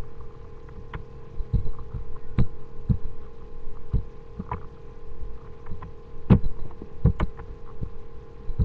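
Irregular clicks and knocks of a computer's mouse and keyboard being worked, over a steady electrical hum.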